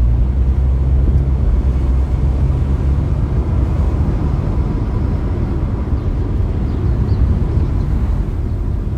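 Steady low rumble of a car on the move, engine and road noise, with no sudden events.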